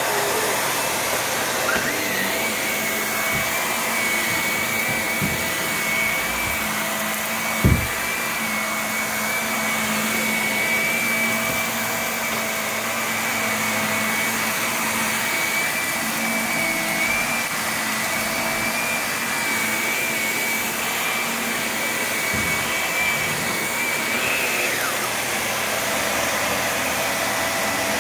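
Bagless upright vacuum cleaner running steadily while vacuuming the floor, a dense rush of air and motor. A high steady whistle comes in about two seconds in and drops away near the end, and there is one sharp knock about eight seconds in.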